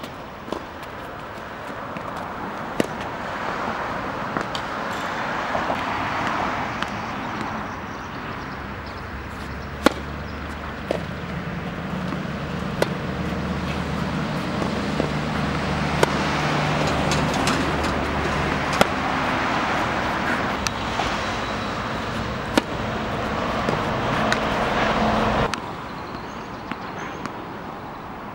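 Tennis ball struck with a racket, a sharp crack every two or three seconds, over steady road traffic noise. A vehicle engine hums low through the middle stretch, and the traffic noise cuts off suddenly near the end.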